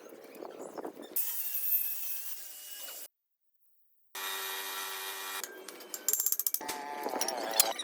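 Tools working on metal engine parts, heard as a run of short cut-together clips: steady whining tool sounds and a burst of fast clicking and knocking near the end. About three seconds in, the sound drops to a second of dead silence at an edit.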